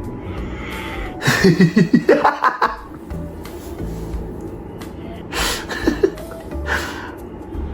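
Laughter in quick pulsing bursts over background music: a long run about a second in and shorter bursts later on.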